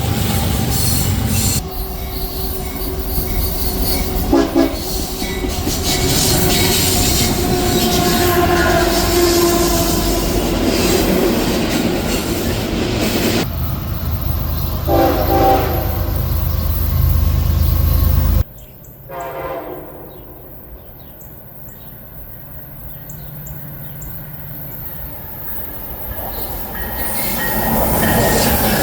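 Passing trains sounding their locomotive horns over heavy rumble and wheel noise, in several short clips that cut abruptly from one to the next. There are brief horn blasts near the start, a longer held horn chord, another blast midway, and after a cut to a quieter scene a horn chord that drops in pitch.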